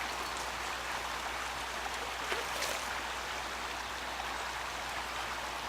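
Steady rush of flowing river water, with a couple of faint ticks about halfway through.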